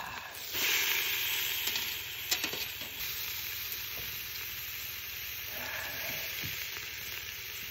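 Black pork neck sizzling on a grill grate over charcoal, louder in the first couple of seconds, with a few faint clicks.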